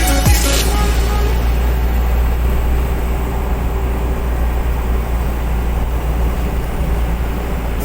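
Heavy diesel machinery running steadily with a constant low rumble, after a short tail of electronic music that cuts off about half a second in.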